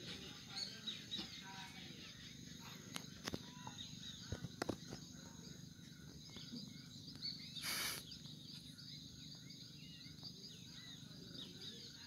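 Two young dogs play-fighting, heard as a few sharp snaps and clicks and a short rush of breath-like noise about eight seconds in. Underneath runs a steady high insect buzz with birds chirping.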